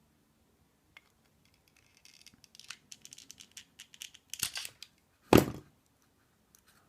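Small tool working the circlip off the core of an ABUS padlock. Light metal scraping and rapid clicking build up from about two seconds in, with one sharp, loud click a little after five seconds as the clip comes free.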